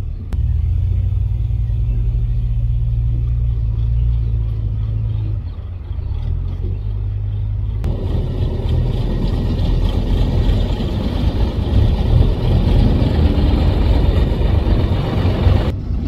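Heavy diesel machinery engines running: a steady low engine note for about five seconds, then, after an abrupt change about eight seconds in, a louder, rougher engine sound with more clatter and hiss that switches off suddenly near the end.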